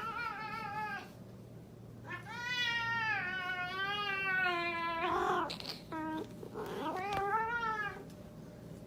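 A cat meowing in long, drawn-out calls whose pitch wavers: one that ends about a second in, a long one from about two to five seconds in, and a shorter one near the end.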